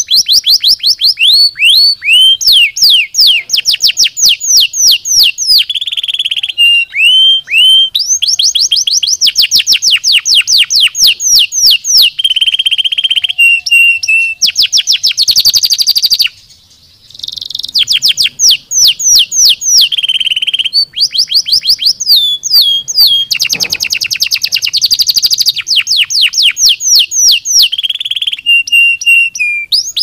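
Domestic canary singing a loud, continuous song of rapid trills, each a run of fast repeated sweeping notes, with a short break a little past halfway.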